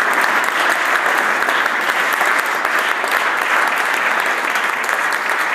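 Many people applauding steadily: a dense patter of hands clapping.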